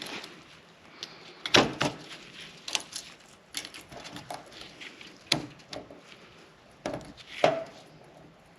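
Scattered sharp metal clicks and clinks, about half a dozen, as a new snap ring is worked into a Barnes4wd Enduro joint by hand with tools.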